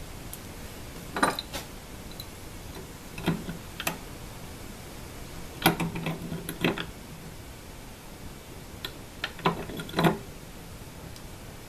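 Brass pipe fittings and a small wrench clinking and knocking together as the fittings are threaded on and tightened, in four short clusters of sharp clicks.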